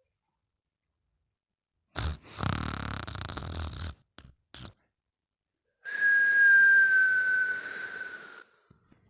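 A sleeper breathing noisily: a rough snore on one breath lasting about two seconds, a short pause, then a whistling breath, one high tone falling slightly, held for about two and a half seconds.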